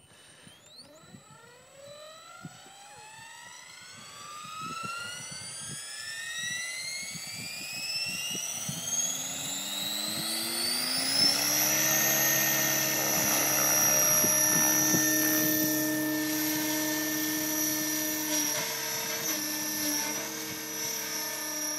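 Align T-Rex 600 radio-controlled helicopter spooling up from rest. Its whine rises steadily in pitch for about eleven seconds as the rotor comes up to speed, then holds steady at head speed while the helicopter flies.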